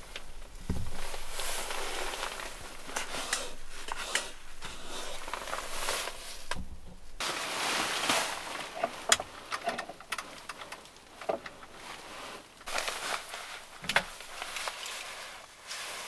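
Rustling of a sleeping bag's fabric as someone moves inside it, with scattered sharp clicks and knocks of small things being handled. The loudest clicks come about halfway through and again near the end.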